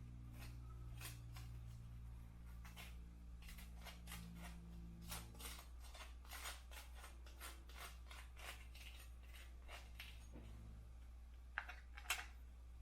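Faint, irregular small clicks and ticks, at times several a second, over a low steady hum.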